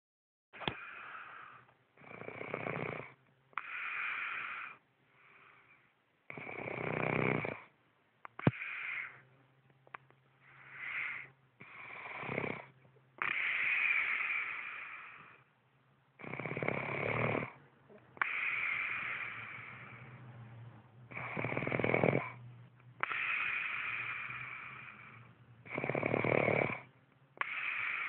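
A woman snoring in her sleep: a steady run of snores, one breath every two seconds or so, some deep and rasping, some breathier. There is a sharp click near the start and a louder one about eight seconds in.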